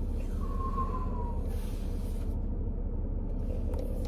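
Steady low rumble inside a car cabin. A short squeak about half a second in falls slightly in pitch.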